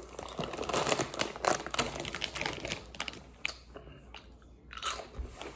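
Crunching and chewing of Buc-ee's Beaver Nuggets, hard caramel-coated corn puffs, close to the microphone. The crunches come thick and fast for the first three seconds, then thin out.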